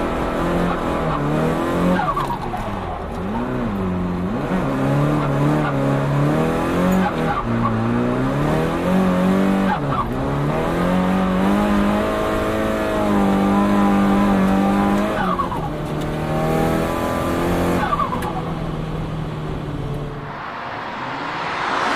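Turbocharged engine of a Nissan Silvia S15 with an HKS GTIII turbo kit, driven hard. The engine note climbs repeatedly and drops sharply each time the throttle is lifted, heard from inside the car. Near the end the engine note falls away and a rushing sound swells.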